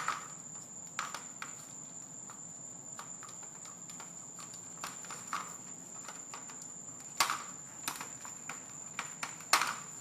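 Hands handling a plastic headlight housing and LED strip: scattered clicks and taps, the loudest about seven and nine and a half seconds in, over a steady high-pitched whine.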